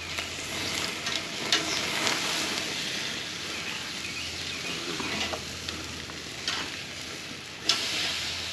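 Chicken pieces sizzling steadily on a grill grate over a hot open fire, with a few sharp clicks of metal tongs against the grate and meat as the pieces are turned, the loudest click about three-quarters of the way through.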